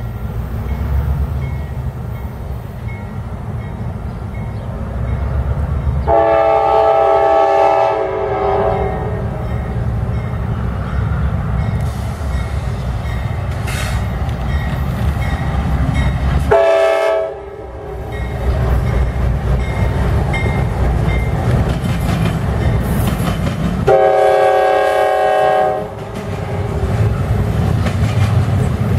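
Norfolk Southern GE Dash 9-44CW diesel locomotives pulling a double-stack intermodal train, engines running under load as they pass close by. The locomotive horn sounds three times: long, short, long. Steel wheels roll on the rails as the stack cars go by near the end.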